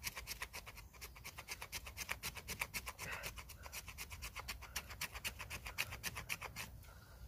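Knife blade scraping a piece of dry wood in rapid, even strokes, taking off fine scrapings as fire tinder. The scraping stops shortly before the end.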